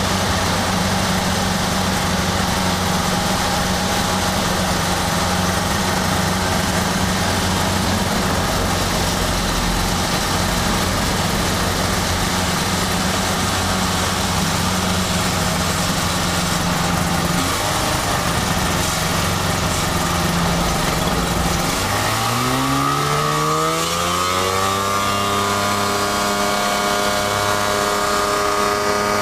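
Kitfox amphibious floatplane's engine and propeller heard from inside the cockpit, running steadily at reduced power on a low approach. About 22 seconds in the throttle is opened and the engine note rises over about three seconds, then holds steady at higher power.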